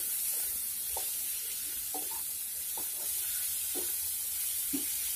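Soaked red lentils and spice paste sizzling in oil in a nonstick pan as a spatula stirs through them, scraping about once a second over a steady high hiss.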